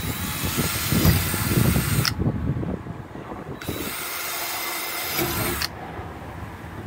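Cordless drill boring pilot holes into an RV's fiberglass rear shell, run in two bursts of about two seconds each; the first burst is louder and heavier.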